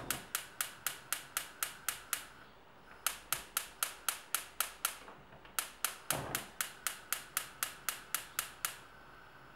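Gas hob's electric spark igniter ticking, about four clicks a second in three runs with short pauses, until the burner lights and the clicking stops near the end.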